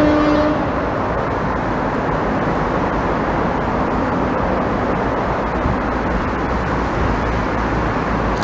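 A long horn blast that stops about half a second in, then the steady noise of road traffic as cars pass on the road below.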